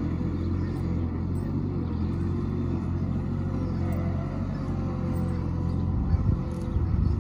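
Skid steer loader's engine running steadily with a low hum, getting a little louder and rougher near the end.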